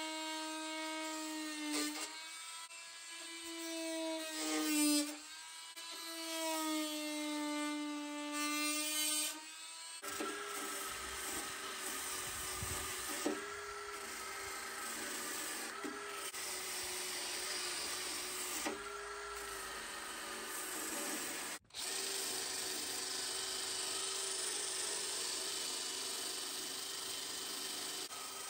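An oscillating multi-tool buzzes against the steel seam of the tailgate's glass surround, its pitch sagging and recovering under load. After about ten seconds it gives way to a cordless drill spinning a small wire wheel brush against the rusty seam, with a rasping hiss and brief changes in pitch a few times.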